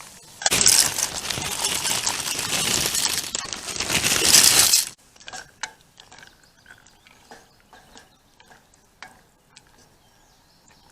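A loud, dense rattling clatter of small hard objects for about four seconds, stopping suddenly, then scattered light clinks.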